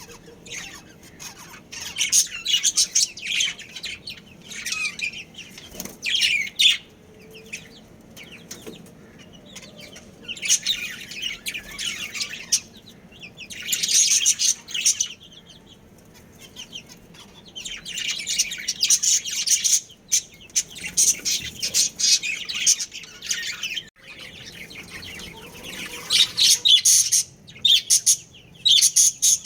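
Budgerigars chattering and chirping in spells of a few seconds, with quieter gaps between. Near the end comes a fast run of evenly repeated calls.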